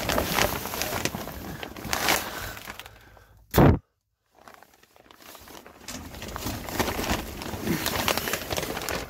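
Plastic vapor-barrier sheeting crinkling and rustling as someone crawls over it, with scuffing and small knocks. About three and a half seconds in there is one loud sharp knock, after which the sound drops out almost completely for about a second before the crinkling resumes.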